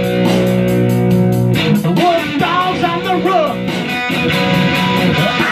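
Electric guitar playing a rock groove over a steady beat with about five even ticks a second. A chord rings out for about a second and a half, then wavering melodic notes follow.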